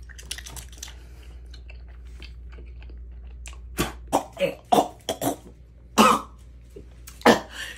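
Faint mouth clicks and smacks, then a person coughing hard in a run of short, sharp coughs, as if choking, with the strongest coughs about six and seven seconds in.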